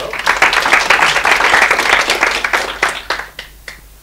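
Audience applauding: dense clapping that thins out after about two and a half seconds to a few last separate claps.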